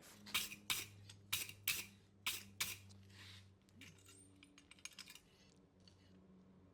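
Light hammer taps on steel over the corner of an anvil, mostly in pairs, about six sharp taps in the first three seconds, then a few fainter ones, over a low steady hum. The taps push over the thin edge of metal to set the plunge groove on the second side of a forged knife blade.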